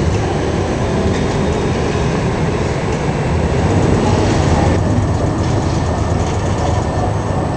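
Steady city street noise of electric trams running on the street tracks among passing traffic, with no single event standing out.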